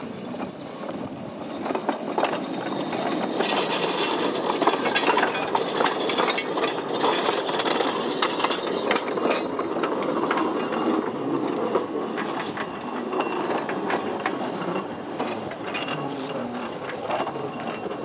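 Small electric narrow-gauge mine locomotive pushing an empty trolley along the rails: steel wheels rolling with a steady rumble and scattered sharp clicks and knocks, growing louder after the first couple of seconds as it gets moving.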